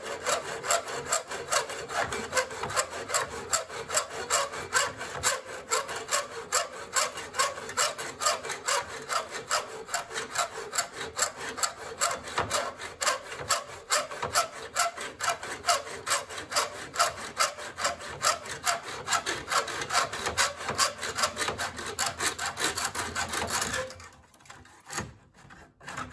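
Hacksaw sawing back and forth through Schluter tile edging trim held in a clamped miter box, cutting a 45-degree miter. The strokes are steady at about three a second and stop near the end.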